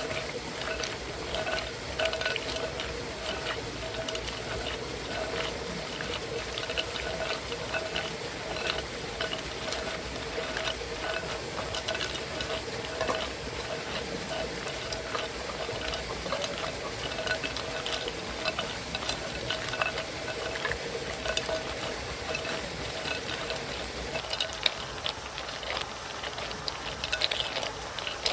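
Cooking at a campfire: a utensil stirring and tapping in a pot, making many small clicks, over a steady background of running stream water.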